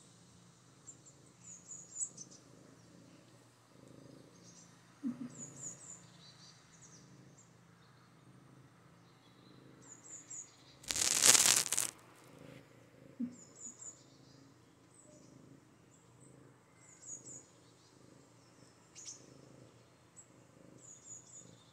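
Maine coon kitten purring softly, a faint low pulsing. A loud rustling burst lasts about a second, about halfway through.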